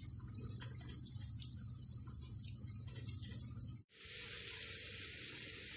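Steady sizzling hiss of food cooking. The oven-roasted chicken sizzles over a low hum from the oven. After a short break about four seconds in, small boiled potatoes sizzle gently in melted margarine in a frying pan on a low flame.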